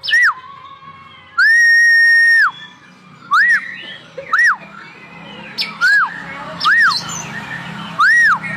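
Oriental magpie-robin (kacer) singing in full voice: a string of loud, clear whistled notes that each rise and fall, about one a second, with one long held note near the start.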